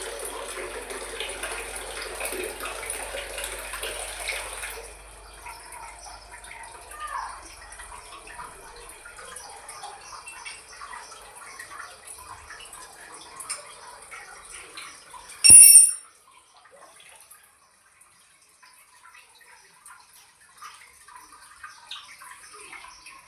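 Water running from a bathroom tap for about five seconds, then dropping off, followed by small clicks and knocks of fittings being handled. About fifteen seconds in there is one short, loud, high-pitched burst.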